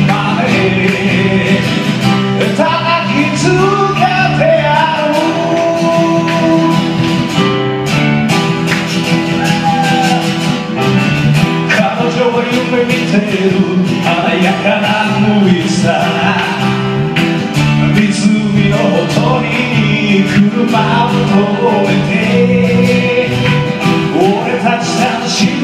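Live band music: a male voice singing a Japanese pop-rock song over strummed acoustic guitar and keyboard, playing without a break.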